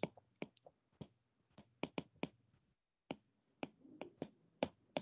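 Faint, irregular clicks of a stylus tip tapping on a tablet's glass screen while handwriting, about three a second.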